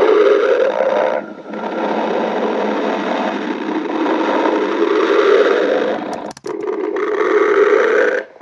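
Stomach growling: a long, continuous gurgling rumble from a hungry stomach, breaking off briefly about a second in and again just past six seconds.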